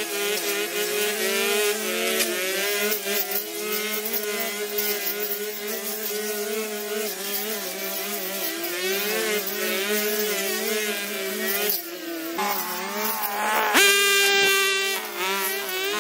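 Two engine-driven brush cutters (string trimmers) running at cutting speed, their engine pitch wavering up and down as they cut through grass. About two seconds before the end, one revs up sharply and loudly.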